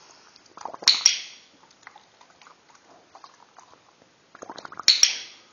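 Bubbles blown into a container of water, twice: each time a quick run of bubbling pops builds into a loud spluttering burst, about a second in and again near the end.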